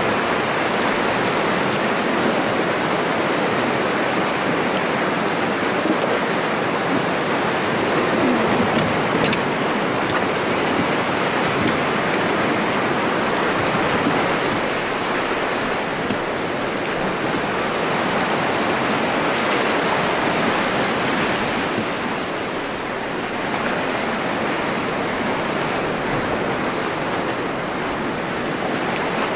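Whitewater river rapids rushing steadily over boulders and a fallen log, a close, continuous wash of fast water.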